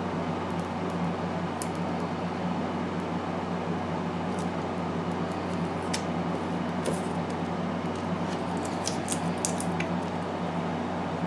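Scattered light clicks and taps of small plastic model-kit parts being handled, over a steady low hum.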